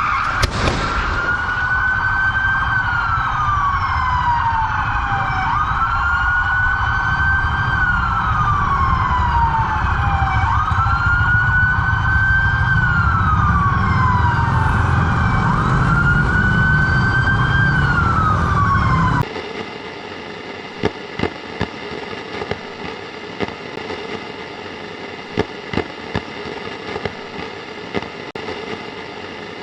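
Emergency-vehicle siren wailing, each cycle a quick rise and a slower fall in pitch about every five seconds, over a low traffic rumble. About two-thirds of the way through it cuts off abruptly, leaving a quieter steady background with a few sharp clicks.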